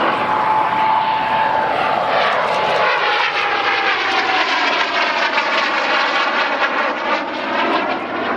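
Aero L-29 Delfín jet trainer's turbojet flying past, a loud steady roar with a whine that drops slightly in pitch as the aircraft passes.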